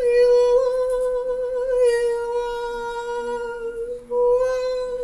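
One steady sung note held for about four seconds, then, after a brief break, the same note taken up again near the end.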